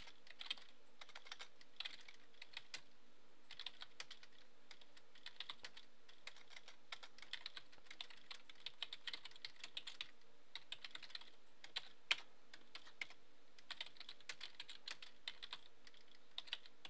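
Computer keyboard typing, faint, in quick runs of key clicks broken by short pauses.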